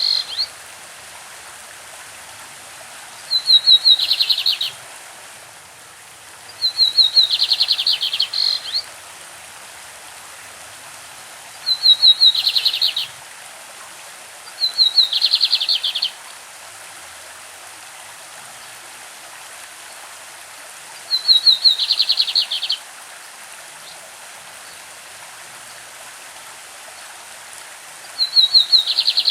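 Lined seedeater (bigodinho) singing its classic song: six short, fast trilled phrases of about a second and a half each, a few seconds apart, over the steady rush of a stream.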